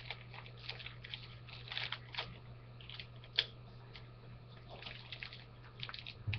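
Plastic first-aid-kit pouch being handled, giving a string of faint crinkles and rustles with one sharper click about three and a half seconds in, over a steady low electrical hum.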